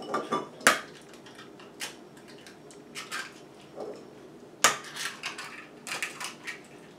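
Eggs cracked against the rim of a stainless steel mixing bowl: two sharp taps, about a second in and again past halfway, with lighter clicks and clinks between.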